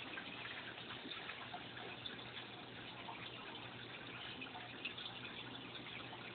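Home aquarium water bubbling and trickling: a steady splashing with small drip-like ticks over a faint low hum.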